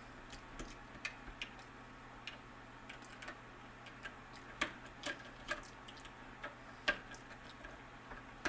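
Small screwdriver turning a screw out of a keypad deadbolt's battery panel: irregular light metal clicks and ticks, a few a second.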